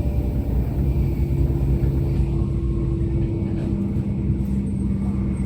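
Shinkansen passenger cabin noise while the train runs at speed: a steady low rumble with a faint hum that steps down in pitch about halfway through.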